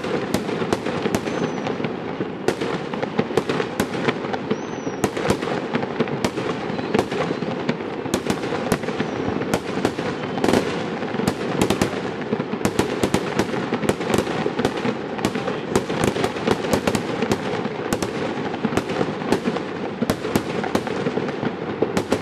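A dense, nearly continuous barrage of fireworks: many aerial shells and firecrackers bursting at once, so the bangs and crackles overlap with no pause.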